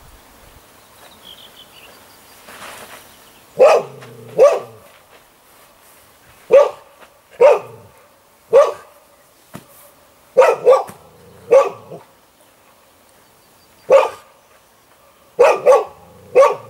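Dog barking repeatedly, often two barks close together, starting about three and a half seconds in and continuing at irregular intervals.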